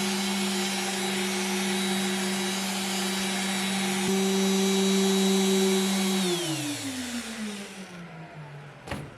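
Electric sander motor running at a steady pitch, switched off about six seconds in and winding down over a couple of seconds. A single sharp click near the end.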